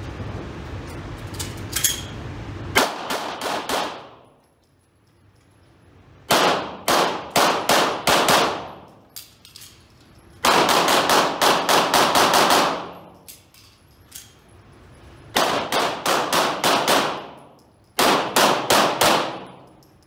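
Pistol fired in rapid strings of several shots each, about six strings with pauses of a second or more between them, each shot ringing in the reverberant indoor range.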